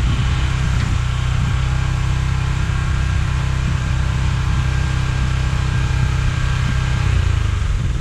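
Small gasoline engine of a towable backhoe trencher running at a steady speed.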